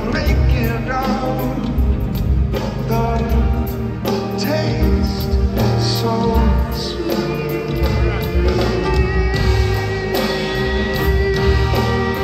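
Live band playing a song, with plucked strings over bass and drums, recorded on a phone from the crowd in front of the stage.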